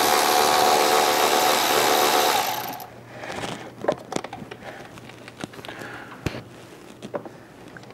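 A small power tool's motor runs with a steady whine, backing out a T30 Torx screw from the throttle body, and stops between two and three seconds in. After that come scattered light clicks and knocks of tools against metal.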